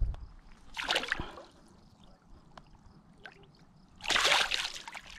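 Kayak paddle splashing in the water in short strokes: one splash about a second in and two longer ones near the end.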